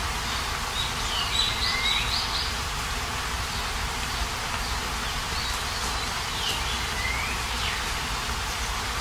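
Steady rain falling, with a bird giving short whistled calls twice, once about a second in and again later on.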